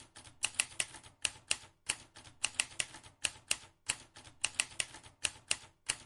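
Typing: sharp key clicks in quick runs of two to four strokes with short pauses between runs.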